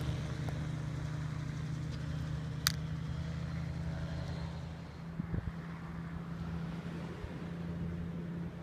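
MTO Sport autogyro's engine and propeller giving a steady low drone as it flies. There is one sharp click a little under 3 seconds in.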